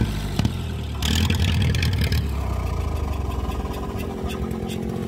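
Ferguson tractor engine running, louder from about one to two seconds in, then settling to a steady run with light clicking toward the end.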